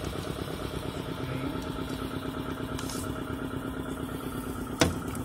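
Air compressor running steadily, a low machine hum with a fast even pulsing. A single sharp click near the end.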